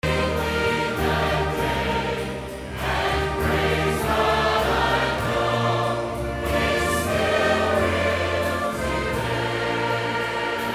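A large church choir singing a gospel song in held chords over a steady low bass line.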